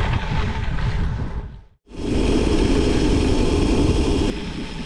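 Wind rush on a chest-mounted microphone under a cycling jersey and the rumble of gravel-bike tyres on a dirt road. The sound fades out briefly just under two seconds in, comes back louder with a strong midrange rush, and drops in level near the end.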